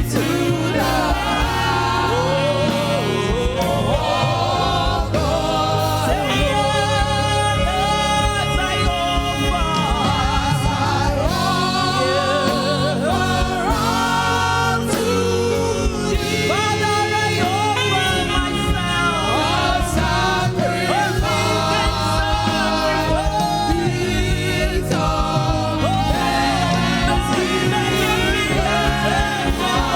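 Gospel praise-and-worship music: singers holding wavering, sustained notes over continuous instrumental accompaniment.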